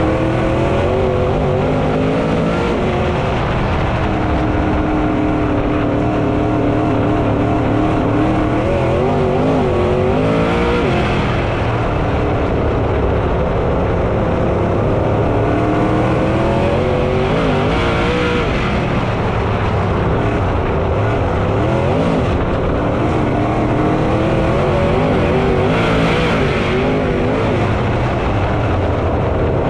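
Dirt late model race cars' V8 engines running hard around a dirt oval, loud and continuous. The engine pitch rises and falls a few times as the cars get on and off the throttle through the turns.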